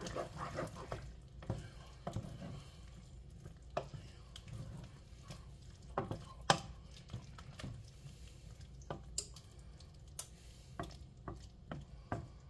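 Wooden spoon stirring thick chicken pot pie filling, made of chicken and vegetables in a roux-thickened sauce, in a stainless steel pot. The stirring is a soft scraping, with scattered light clicks and a few sharper knocks of the spoon against the pot.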